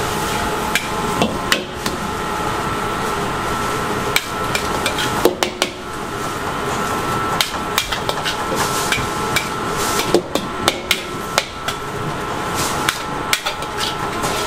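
A metal spatula repeatedly clanks and scrapes against a steel wok as noodles are stir-fried. The strikes come irregularly, sometimes several in a second, over a steady background hiss.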